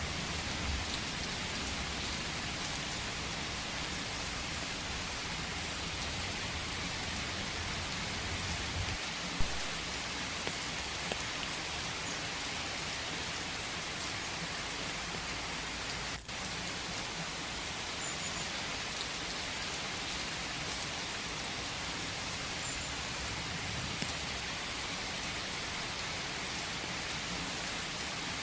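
Steady rain falling, an even hiss of many drops hitting surfaces, with one sharper, louder drop or tap about nine seconds in.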